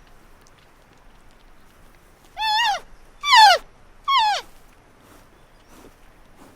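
An animal giving three short, loud calls in quick succession, each one clear and pitched, rising and then dropping.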